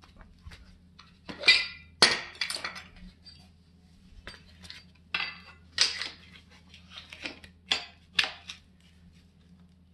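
Metal parts of a MacPherson strut spring compressor and hand tools being picked up, set down and fitted against the strut and coil spring: a string of sharp clinks and clatters with short ringing, the loudest about one and a half and two seconds in, more between five and eight and a half seconds.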